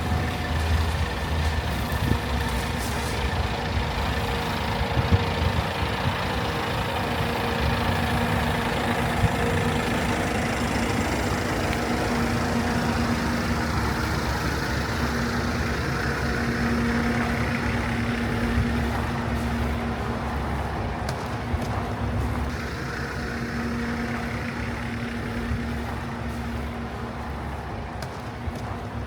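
Engine running steadily nearby: a constant hum with a few steady tones over a wash of street noise.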